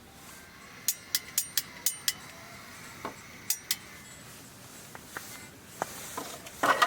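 Sharp, light clinks of metal or glass camp gear being handled: a quick run of about six clicks, a pair a little later, then scattered softer ones, ending in a brief louder rustle.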